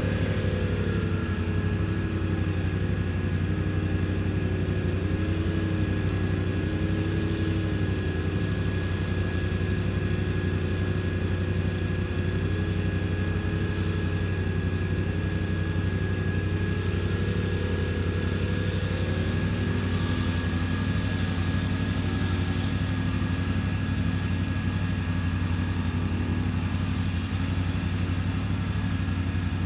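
Quad (ATV) engine running steadily with the throttle varied: its pitch wavers up and down, then settles lower about two-thirds of the way through, over a steady low hum and a thin steady whine.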